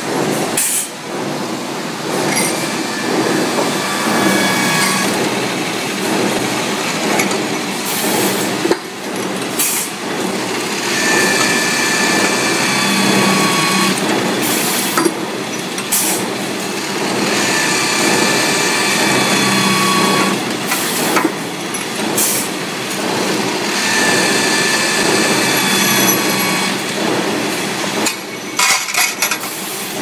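Machine tool cutting stainless steel furniture-handle parts under flood coolant: a steady, loud machine din with a high cutting whine that comes and goes every few seconds, and occasional sharp metallic clanks.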